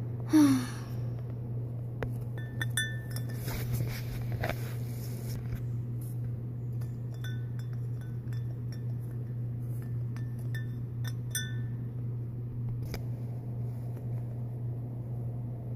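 Light ringing clinks and taps in small clusters, as hard plastic toy figures knock against porcelain, over a steady low hum. A short, loud sound falling in pitch comes just after the start.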